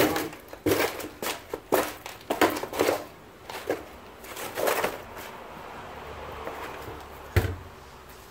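Cardboard box and paper wrapping of a new brake rotor being handled, rustling and scraping in quick bursts for about five seconds. A single knock follows near the end as the heavy rotor is set down on the box.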